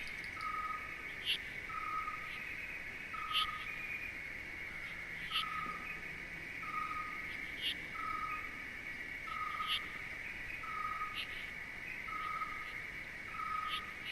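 Nature ambience: a steady high-pitched insect trill, with a short call note repeated evenly about every three-quarters of a second and brief sharp chirps every second or two.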